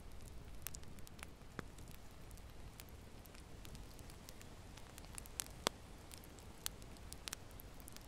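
Wood logs burning in a fireplace: scattered sharp crackles and pops over a low, soft rush of flame, the loudest pop a little past halfway.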